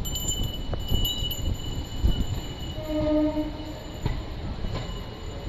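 MEMU local train running slowly past a platform: a low rolling rumble with irregular sharp knocks from the wheels. A short steady tone sounds for about a second, roughly three seconds in.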